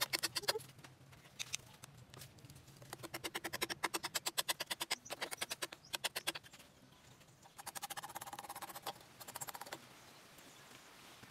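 Serrated hand-saw blade sawing through a wooden branch, a rasping in several bursts of quick, even strokes with short pauses between.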